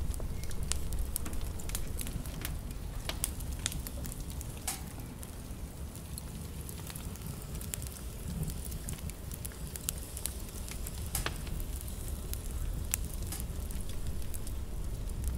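Wood fire crackling: irregular sharp pops and snaps over a low steady rumble.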